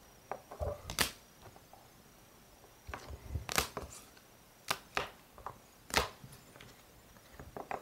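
Rigid plastic top loaders holding trading cards clicking and clacking against each other as a stack is flipped through and handled, a series of sharp taps with about four louder clacks.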